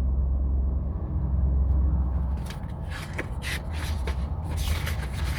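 Paper rustling and crinkling as sketchbook pages are handled and turned to the next drawing: short crisp rustles, thickening from about three seconds in, over a steady low hum.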